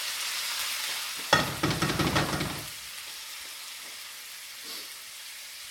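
Pan of garlic and zucchini noodles sizzling in olive oil. About a second in, a burst of clattering and scraping lasts about a second and a half, then the sizzle carries on more quietly.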